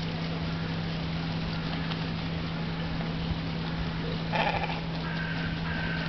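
A single short animal call, about half a second long, rings out about four and a half seconds in over a steady low hum; a few faint, short, higher calls follow near the end.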